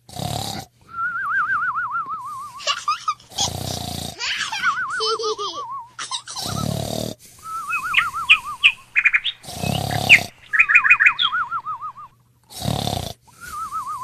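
Cartoon snoring sound effect: a rasping snore on each in-breath, then a wavering whistle on each out-breath, repeating about every three seconds, with small pops and chirps in between.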